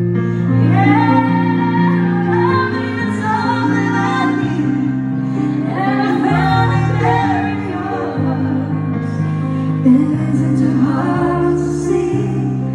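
A woman singing a slow song over sustained accompanying chords that change every second or two.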